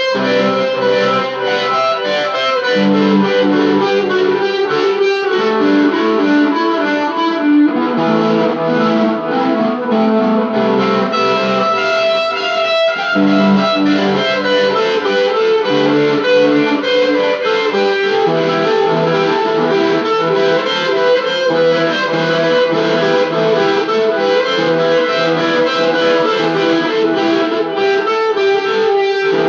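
Instrumental rock music, a steady run of layered pitched notes with no singing.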